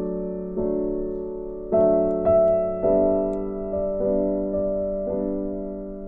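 Slow, gentle piano background music: notes and chords struck about once a second, each left to fade away.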